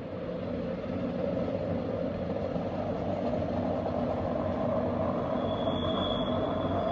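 Rhaetian Railway Glacier Express train, led by a Ge 4/4 electric locomotive, rumbling onto a curved viaduct and growing steadily louder as it approaches. About five and a half seconds in, a thin high wheel squeal starts as the wheels take the curve.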